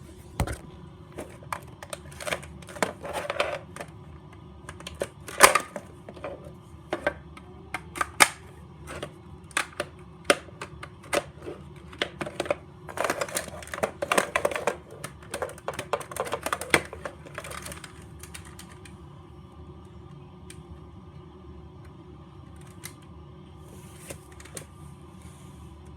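Irregular sharp plastic clicks and clacks of a toy foam-dart blaster's parts being handled and fitted together. They are busiest through the first two-thirds, with a steady low hum underneath, then thin out to a few clicks.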